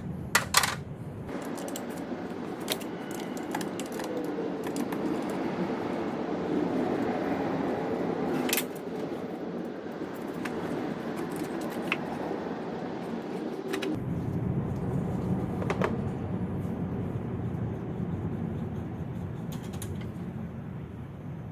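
Scattered sharp metallic clicks and clinks of hand work on a car's engine bay, a few close together at the start and then single ones every few seconds, over a steady background noise that drops lower in pitch about two-thirds of the way through.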